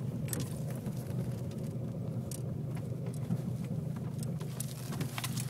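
2003 Volkswagen GTI's 1.8-litre turbocharged four-cylinder engine running steadily at idle, with scattered irregular clicks over the low hum.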